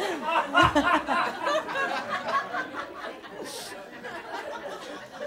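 Audience laughing and chuckling, the laughter dying down over a few seconds.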